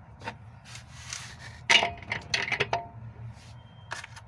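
Small metal hardware, a steel washer and fittings, clinking and rattling while being fitted onto the upper stud of a new front shock absorber. There are a few light clicks, then a cluster of louder ringing clinks a little under halfway through, and one more click near the end.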